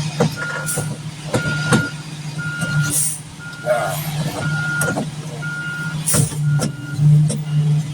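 A concrete mixer truck's reversing alarm beeps about once a second, one steady tone each time, and stops near the end. Under it the truck's diesel engine runs steadily, with scattered knocks and rattles.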